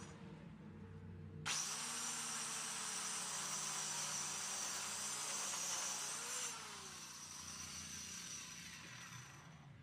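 Handheld 4-inch electric cutter with its blade sawing along a wooden plank. The blade bites into the wood suddenly about a second and a half in and cuts steadily. Near two-thirds of the way through it is lifted out, and the motor winds down and fades.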